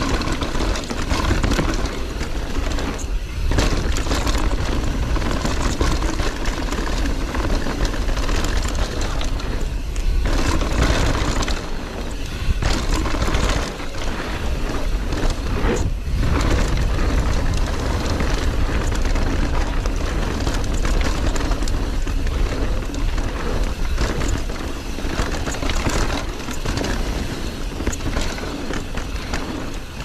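Wind rushing over a GoPro Hero 9's microphone as a mountain bike runs fast down a dirt trail, with tyre noise and the bike rattling and knocking over bumps. The roar is loud and steady, broken by a few brief dips and jolts.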